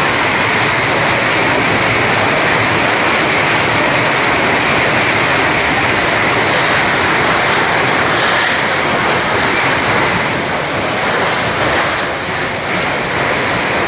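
Overloaded goods train running past close alongside the platform: a loud, steady rushing din of wagons, with no separate crashes, as its load tears through the platform shed roof.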